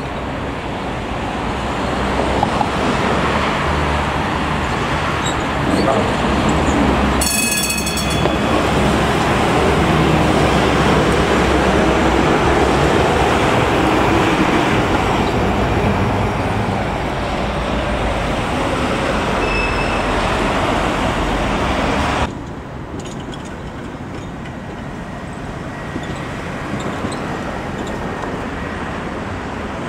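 Tram running on street track, a loud rolling rumble, with a brief high shrill tone about a quarter of the way in. About three-quarters of the way through, the sound drops suddenly to quieter street traffic noise.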